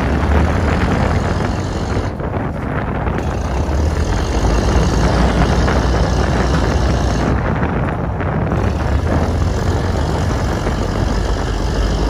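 Small trawler's engine running steadily, with strong wind buffeting the microphone.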